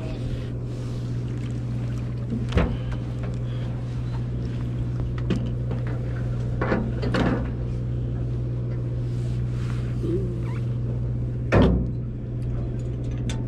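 Steady low drone of a fishing party boat's engine, with a few sharp knocks, the loudest about a second and a half before the end.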